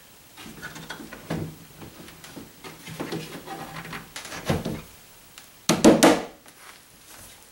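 A desk's board top being worked into place on its pedestals by hand: scraping and light wooden knocks, then a quick cluster of loud wooden knocks about six seconds in.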